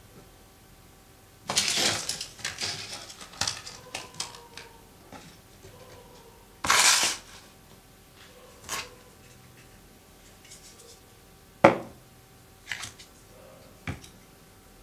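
Scattered handling noises of small hard objects: a rustle about a second and a half in, a louder short swish about seven seconds in, and sharp clicks or taps near the end.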